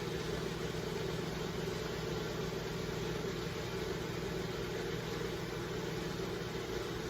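LiftMaster screw-drive garage door opener running under power with its new motor coupler, a steady motor hum as the screw drive moves the door through its travel.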